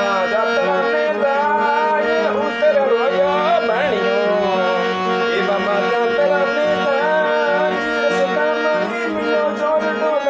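Rajasthani devotional folk music playing without sung words: steady held notes, a wavering melody line above them, and a hand drum keeping a regular beat.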